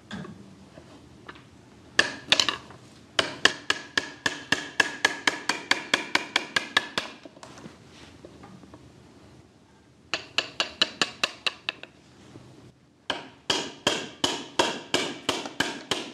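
A hammer driving a Japanese carpenter's chisel (nomi) into timber in quick runs of blows, about six a second, each with a short metallic ring, with pauses between the runs. The chisel is chopping waste wood out of a timber joint down to the saw cuts.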